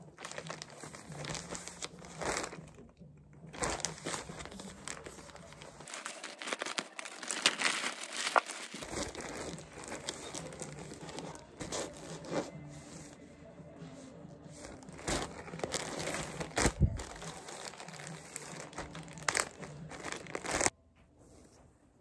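Packaging being handled and opened: crinkling and rustling with sharp crackles, cutting off abruptly near the end.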